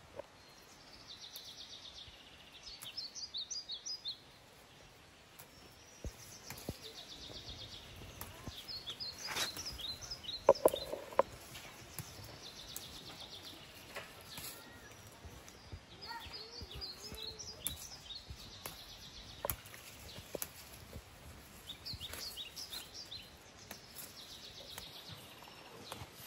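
A songbird repeating the same high phrase every five or six seconds: a buzzy trill followed by a quick run of short notes. Light clicks and rustles of plants being handled come and go, with one louder short sound about ten seconds in.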